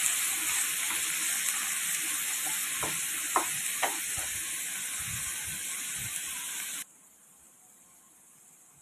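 Sliced bitter gourd and onions sizzling in hot oil in a wok while a wooden spatula stirs and scrapes them, with a few sharp scrapes of the spatula about three to four seconds in. The sizzle cuts off suddenly near the end, leaving near silence.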